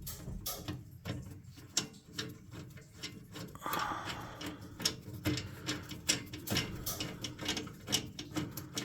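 Hand ratchet clicking in irregular runs of sharp ticks as a 1/4-inch screw is driven down until hand tight.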